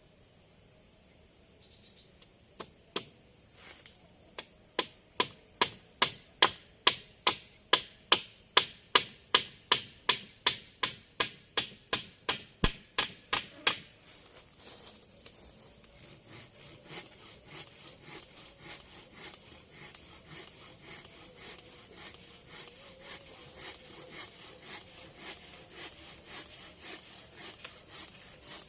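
Steady high drone of forest insects, with a run of sharp, evenly spaced knocks about two to three a second: loud for about ten seconds, then carrying on much fainter.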